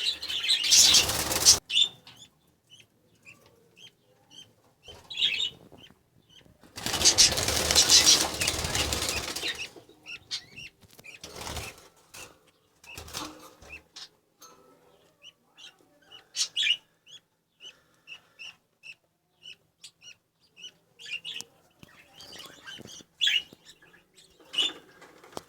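Lovebirds flapping their wings in two long bursts, one at the start and one about seven seconds in, with short high chirps repeating between them.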